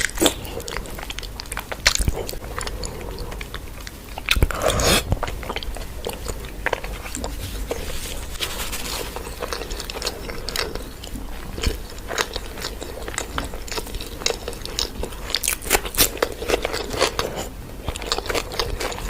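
A person chewing and biting food, with irregular crunchy clicks throughout and a louder cluster of bites about four to five seconds in.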